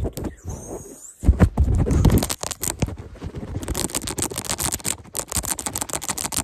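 Fingertips and fingernails scratching and rubbing rapidly right on the phone's microphone. Heavy muffled rubbing about a second in gives way to a fast, dense run of quick scratches from about halfway.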